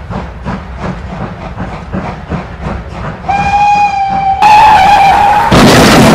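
Steam locomotive chuffing at about three puffs a second, then giving one long steady whistle that grows louder partway through. A loud rushing noise takes over near the end.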